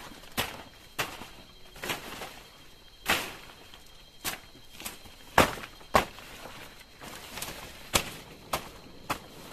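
Burning bamboo torch crackling and popping: about a dozen sharp, irregular cracks, the loudest two coming about five and a half and six seconds in.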